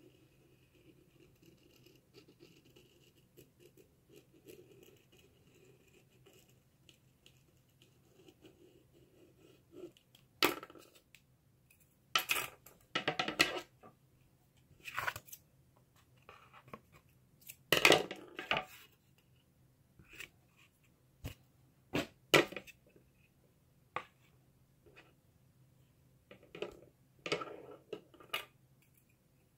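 A pen tracing around an embroidery hoop on cardboard, a faint scratching for about the first ten seconds. Then a string of irregular sharp knocks and short rustles as the cardboard, the wooden hoop and a sheet of felt are handled and set down on a hard tabletop.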